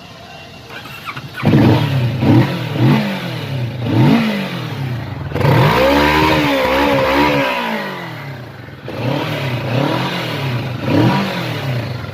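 Kawasaki Vulcan S 650's parallel-twin engine being revved: four quick throttle blips, then a longer rev held high for about two seconds before falling back, then two more blips near the end.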